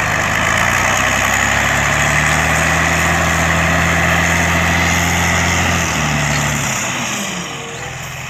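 Diesel engine of a Randon RK 430B off-road dump truck running steadily while its bed tips up to dump a load of earth. The engine note drops away near the end.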